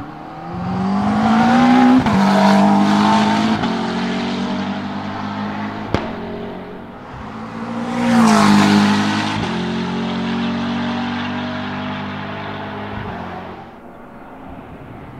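McLaren 650S GT3 race car's 3.8-litre twin-turbo V8 accelerating hard, rising in pitch and dropping sharply at an upshift, twice, loudest about two and eight seconds in, then fading as the car moves off. A short sharp crack about six seconds in.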